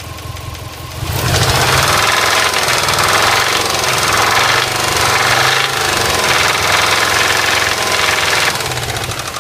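Subaru EJ206 flat-four engine knocking, held at raised revs from about a second in, then dropping back toward idle near the end. The knock eased once the engine warmed up, which the owners put down to the pistons expanding when hot.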